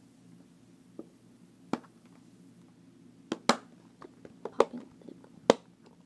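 Silicone bubbles on a solar-system pop-it fidget toy being pressed with the fingers: about six sharp pops at irregular intervals, the loudest about three and a half and five and a half seconds in.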